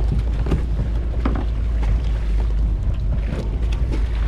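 Wind rumbling on the microphone over water sloshing around a small boat, with irregular splashes and knocks as a cast net full of fish is hauled over the bow.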